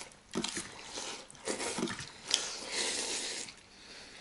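Instant noodles in broth being slurped by two people eating fast: a run of short hissing slurps, then a longer slurp about two and a half seconds in, with one sharp click just before it.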